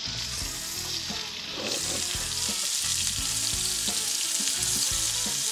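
Magpie goose breast fillets sizzling as they fry in canola oil in a non-stick frying pan. The sizzle is steady and grows a little louder about two seconds in.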